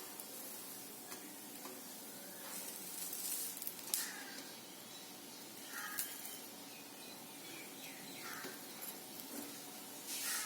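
Food sizzling on a hot tawa, with a few sharp clicks of a utensil.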